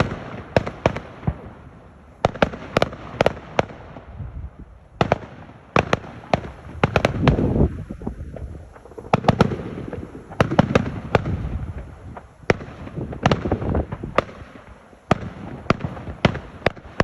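Fireworks going off: many sharp bangs in quick, irregular succession with rumbling between them, and a brief lull about four seconds in.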